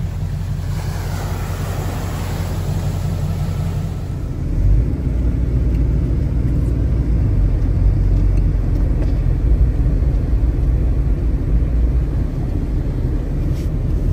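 4x4 truck engine running with a steady low rumble, with a rushing hiss in the first few seconds; the rumble grows louder about four and a half seconds in and stays up, as the truck gets under way.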